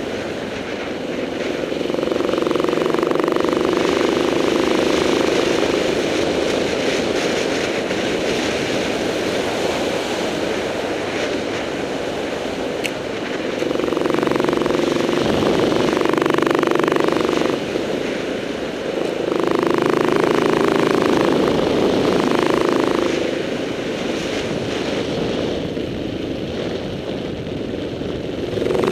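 KTM 690 Enduro R's single-cylinder four-stroke engine under way on a dirt trail. It pulls harder in stretches starting about 2, 14 and 19 seconds in, and eases off in between.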